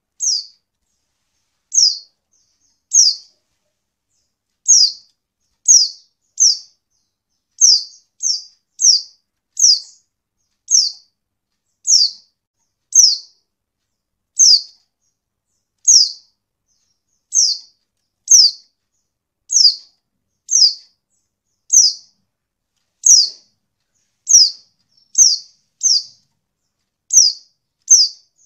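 Female white-eye (pleci) calling: short, high notes that each slide downward, repeated about once a second, sometimes two in quick succession. This is the call used as a lure to set male white-eyes singing.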